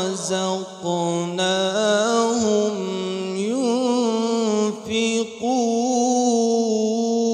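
A young man reciting the Qur'an in the melodic tajwid style into a handheld microphone. He draws out each word into long held notes with wavering ornaments, broken by two short pauses.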